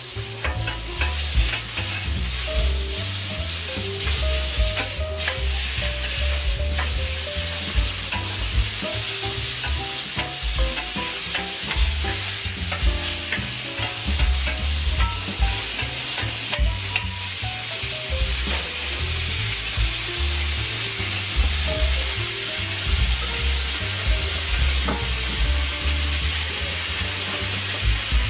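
Hita-style yakisoba noodles sizzling as they fry on a hot griddle, with background music playing over it.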